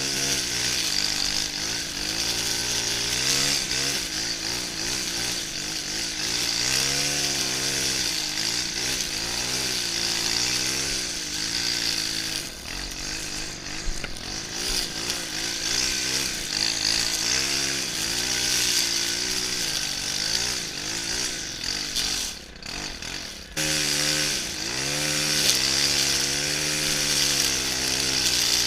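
Stihl FS 131 brushcutter's 36 cc engine running at high revs while trimming grass, its pitch wavering up and down as it cuts. About 22 seconds in the throttle eases off for a second or so before it revs back up.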